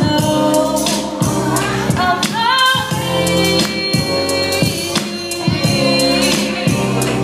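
A woman singing into a microphone, holding and sliding between notes, over musical accompaniment with a steady beat.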